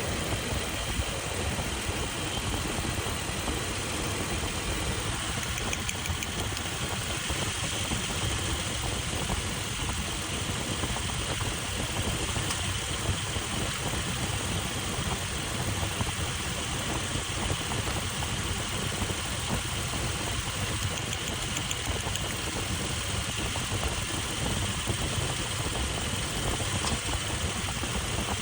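Toyota Land Cruiser engine idling steadily, being checked for a misfire.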